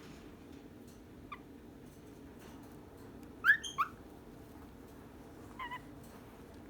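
Cockatiels chirping: a faint short peep about a second in, a louder two-note rising call about halfway through, and a soft double chirp near the end, over a steady low hum.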